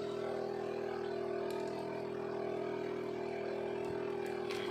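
A small engine running steadily at a constant speed, an even hum that does not rise or fall.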